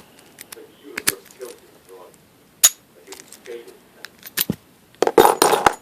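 Master Lock No. 1 laminated steel padlock handled with its key: a few separate sharp metal clicks, then a quick cluster of louder clicks and clatter about five seconds in.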